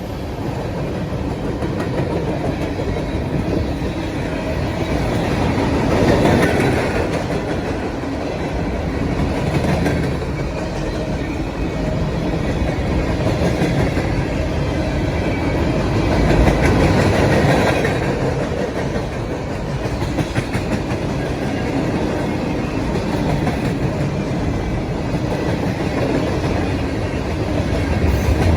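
CSX freight train rolling past, a steady rumble of steel wheels on rail that swells louder twice, about six seconds in and again about seventeen seconds in.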